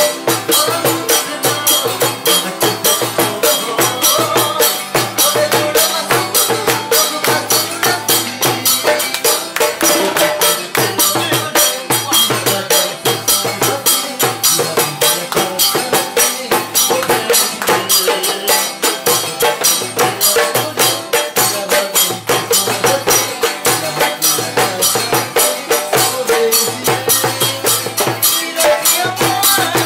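Music with a fast, steady beat of sharp, jingling percussion strokes and a melody line over it.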